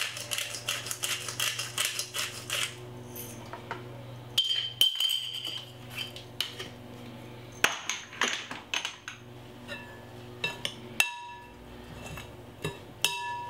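Metal serving utensils clinking and scraping against a glass mixing bowl while a salad is mixed, several strikes ringing on. It opens with a fast run of short rattling strokes lasting a couple of seconds.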